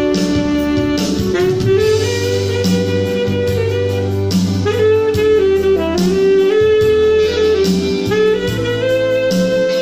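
Tenor saxophone playing a melody of long held notes over accompaniment from a Yamaha PSR-S770 arranger keyboard, with a steady bass line underneath.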